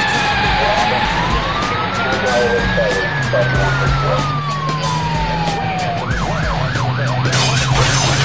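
Police siren: one slow wail rising for about two seconds and falling for three, then switching to a fast yelp about six seconds in, over a low steady hum.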